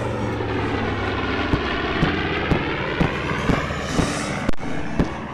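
B-25 Mitchell bomber's twin radial engines running loud as it passes low overhead. From about a second and a half in, a regular sharp thump comes in about twice a second.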